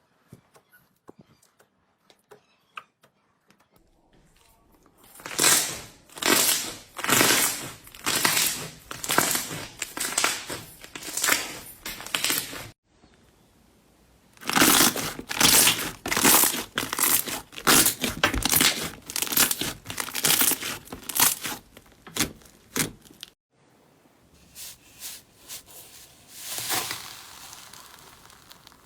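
Slime being squeezed and pressed by hand, crackling and crunching in a run of repeated squeezes, about one or two a second. The sound breaks off abruptly twice, and the last few seconds are quieter.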